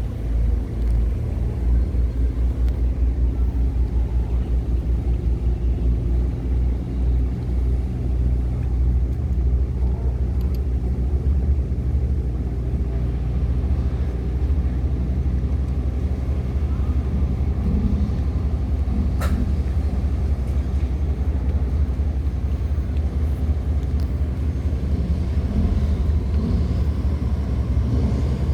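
Tugboat diesel engine running steadily under towing load, a deep low rumble that pulses slightly. A single sharp click sounds about two-thirds of the way through.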